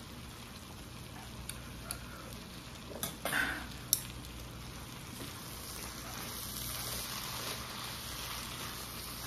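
Stir-fried noodles, calamari and octopus sizzling in a pan while being tossed with chopsticks and a wooden spatula, with a few sharp clicks of the utensils against the pan in the first half. The sizzle grows stronger in the second half.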